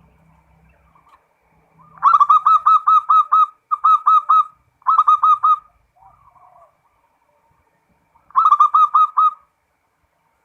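Zebra dove (perkutut) cooing in four phrases of rapid, evenly repeated notes, several a second. The phrases come three in quick succession, then one more after a pause of about three seconds.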